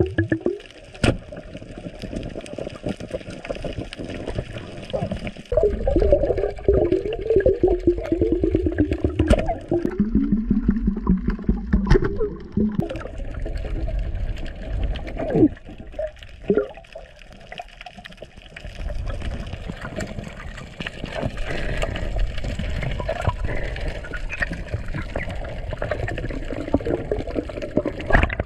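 Underwater sound through a diving camera: water rushing and gurgling, with bubbly wavering tones and a few sharp knocks.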